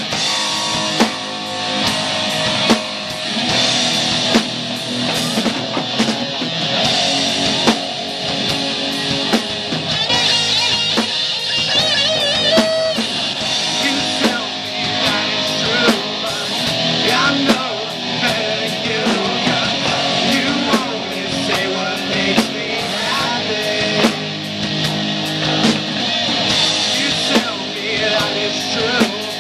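Live amateur rock band playing: two electric guitars, bass guitar and a Ludwig drum kit, with a steady drum beat under the guitars.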